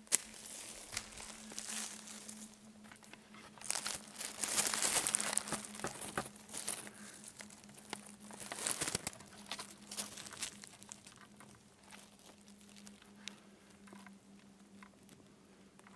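Dry fallen leaves crackling and rustling as the leaf litter is trodden on and handled, busiest about four to six seconds in and again near nine seconds. A faint steady low hum lies underneath.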